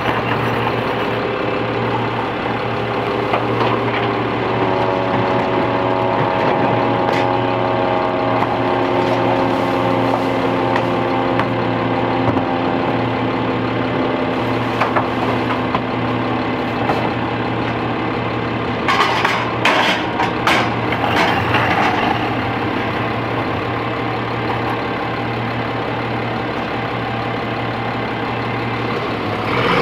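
Peterbilt 320 garbage truck with a McNeilus rear-loader body, its diesel engine idling with a steady low drone. For about the first half a steady hum of several tones runs over the idle. Around twenty seconds in comes a cluster of clanks and bangs as trash cans are emptied into the rear hopper.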